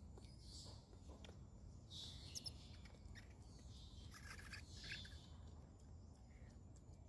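Faint, high-pitched chirping calls in a few short bouts, over a low steady background hum.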